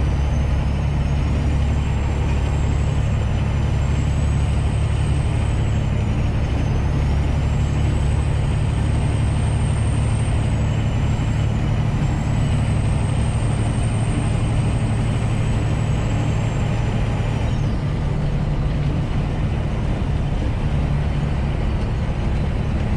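Semi truck's diesel engine droning steadily at cruise, with road noise, heard from the cab. A thin high whine rides over it, wavering in pitch, and stops about three-quarters of the way through.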